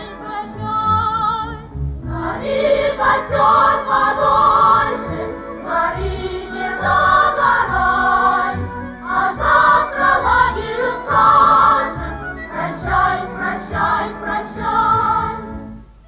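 A choir singing a Soviet pioneer song with musical accompaniment. The voices come in fuller about two seconds in, after a brief dip.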